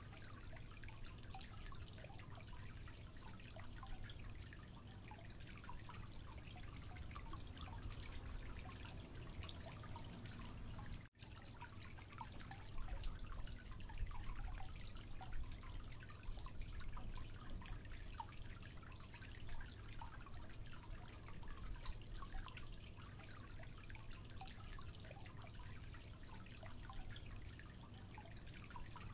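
Wooden spatula stirring thick cake batter in a ceramic bowl: soft, irregular wet clicks and light scrapes. The sound cuts out briefly about eleven seconds in.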